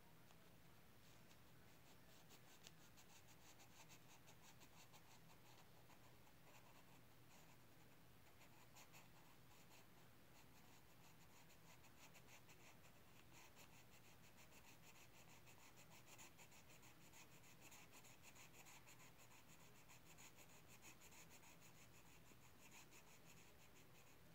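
Faint scratching of a drawing tool on paper, a steady run of rapid back-and-forth strokes as a picture is coloured in.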